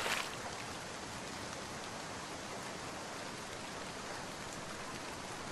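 Steady, even hiss of outdoor noise, with a brief louder rush at the very start.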